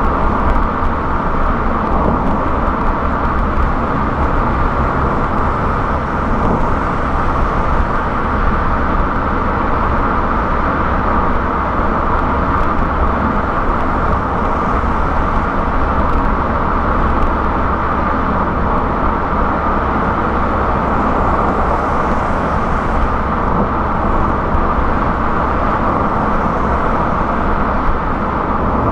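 Car cruising on a highway: a steady rumble of tyres on the road and engine noise, with no change in pace.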